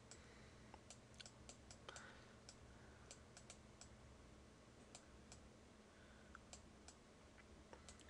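Near silence with faint, irregular clicks of a stylus tapping on a pen tablet while digits are handwritten, over a faint low steady hum.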